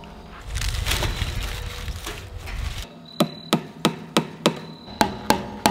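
A hammer driving a fence staple into a wooden fence post in quick, even strikes, about three a second, starting about three seconds in. Before the strikes there are a couple of seconds of low rumbling noise.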